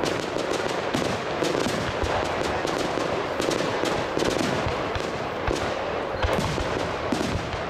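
Aerial firework shells bursting in rapid, irregular succession, a continuous barrage of bangs several times a second with no pauses between them.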